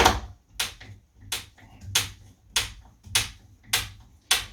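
Sharp clicks from fitting a door handle, about eight of them evenly spaced at roughly one every 0.6 s.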